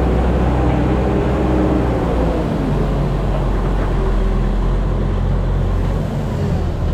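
Heavy farm machinery's engine running steadily with a deep hum, its note shifting slightly in pitch.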